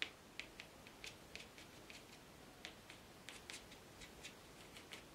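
Faint, irregular ticks and scratches of a watercolour brush dabbing and tapping on rough watercolour paper, a few a second.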